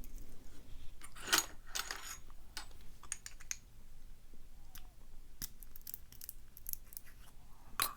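Scattered light metallic clicks and scraping of a key and core follower working the pinned core out of a brass padlock body. The sharpest clicks come about one and a half seconds in, around five and a half seconds in, and near the end.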